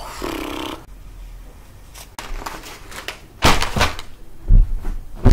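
Dull thumps and rustling of someone shifting on a couch and handling tissues and packages. A faint click comes about two seconds in, and the loudest thumps come about three and a half and four and a half seconds in.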